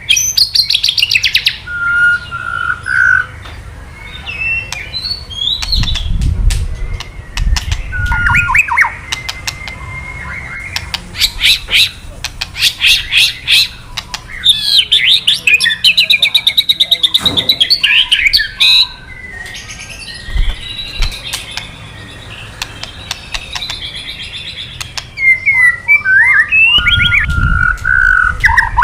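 White-rumped shama (murai batu) giving harsh, rapid crackling 'kretekan' calls, mixed with short whistled notes and fast trills.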